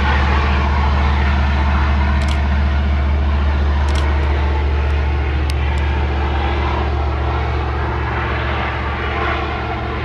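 Diesel-electric freight locomotives hauling a loaded iron-ore train pass close by. They make a loud, steady low engine drone over the rumble of the wagons, easing a little in the second half as the lead unit draws away. A few brief high squeaks cut through about two seconds in and again around the middle.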